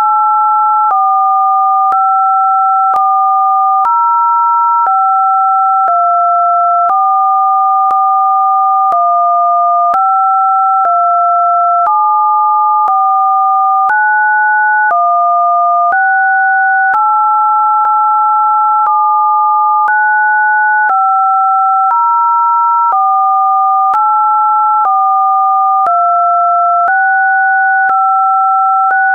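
Two electronically generated pure tones sounding together, a lower and a higher one, each stepping to a new pitch about once a second, with a faint click at every step.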